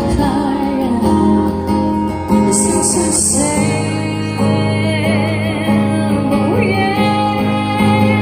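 A woman singing with acoustic guitar accompaniment from a small live band.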